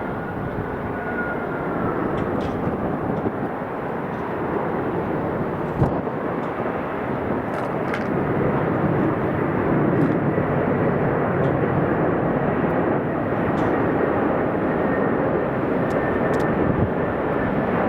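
Airbus A380's four Engine Alliance GP7200 turbofans, heard as a loud, steady jet roar with a faint whine at the start.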